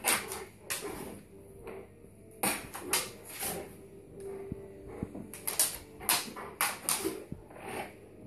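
A large Bullmastiff x Dogue de Bordeaux snapping its jaws at bubbles. Its teeth make sharp clacks that come in irregular clusters.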